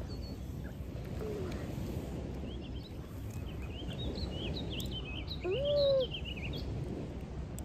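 Outdoor park ambience: a steady low background hiss with small birds chirping in a quick run of short high notes through the middle. About five and a half seconds in, a single louder hoot-like call briefly rises and falls.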